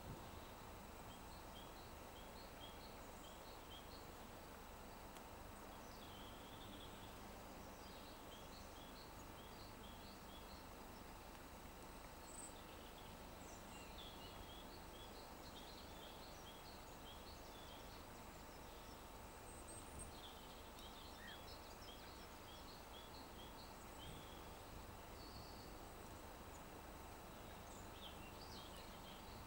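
Faint steady background hiss with small birds chirping: runs of short, high, two-pitched chirps that recur several times.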